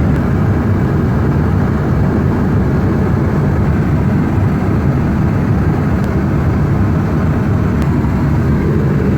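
Steady, even cabin noise of an airliner in flight, heard inside its lavatory: the low, unbroken rush of engines and airflow.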